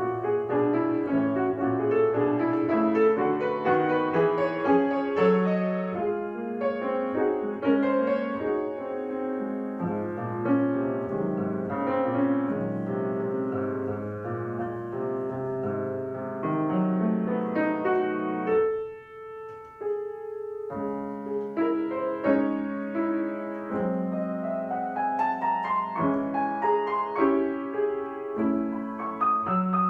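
Solo piano playing a piece with a steady flow of notes. About two-thirds through the playing thins to a couple of softly held notes for two seconds, then resumes, with rising runs near the end.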